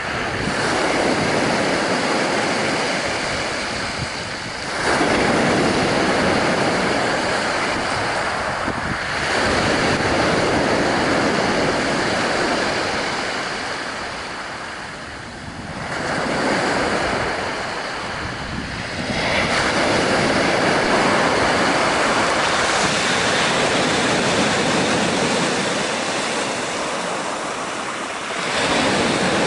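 Sea surf breaking on the shore: loud, steady wash that swells as each wave comes in and ebbs between them, several waves in a row.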